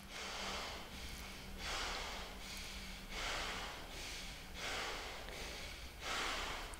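Bhastrika (bellows) breathing through one nostril with the other held shut: forceful in-and-out breaths rushing through the nose, a strong one about every one and a half seconds.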